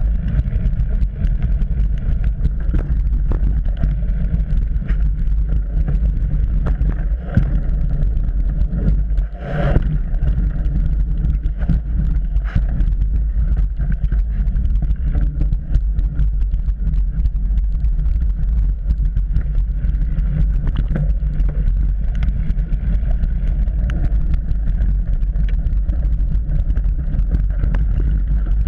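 Trek Remedy 8 full-suspension mountain bike ridden fast over a dirt singletrack: a steady low rumble of tyres and wind, with frequent rattles and knocks as the bike goes over rough ground. A sharper clatter comes about nine and a half seconds in.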